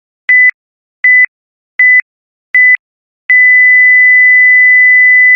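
Countdown timer's final beeps: four short, high, pure-tone beeps about three-quarters of a second apart, then a long steady beep at the same pitch starting a little past three seconds in, signalling that time is up.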